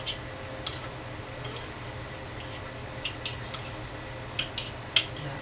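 Small utensil and gloved hands clicking and tapping against a metal muffin pan as seasoned chicken pieces are pressed and shaped into its cups: a scattered series of sharp taps, the loudest near the end, over a steady low hum.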